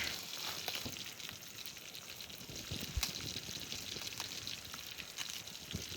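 Fresh-caught fish frying in a pan: a steady sizzling hiss with small scattered pops.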